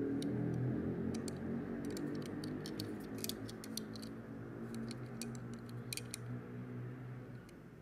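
Light, scattered clicks and taps from fingers handling a small die-cast model car, over soft background music of held low notes that fades out near the end.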